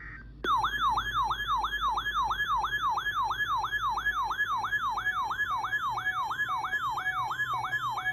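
Electronic yelp siren, starting abruptly about half a second in and sweeping rapidly up and down, about three cycles a second.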